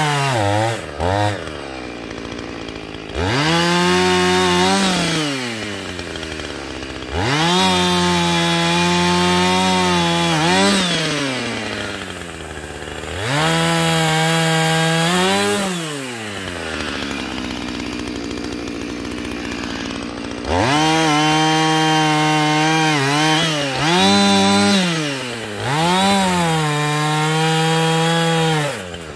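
Two-stroke chainsaw cutting firewood: the engine revs up to full throttle five times, holding each cut for a few seconds, and drops back to idle between cuts.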